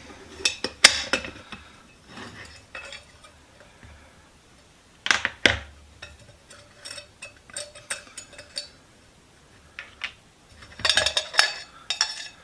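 Small metal parts of a brass pump oiler clinking and knocking together as they are handled and taken apart, in scattered clusters of sharp clicks.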